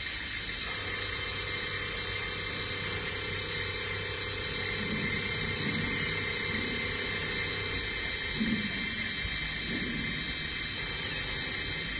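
CNC Swiss-type lathe running steadily: a constant machine hum with several high, steady whining tones.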